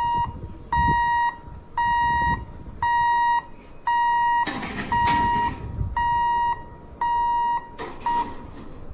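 An electronic warning beeper sounding at a steady rate of about one beep a second, each beep a single held tone about half a second long. A brief rush of broader noise rises about halfway through and again near the end.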